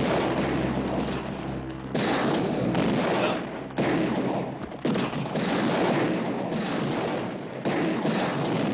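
A string of about five gunshots, each cracking out suddenly and trailing off in a long echoing tail, fired during a horseback getaway in a western street shootout.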